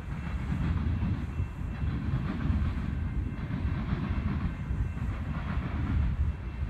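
Freight train's autorack cars rolling past on the rails: a steady low rumble of wheels on track.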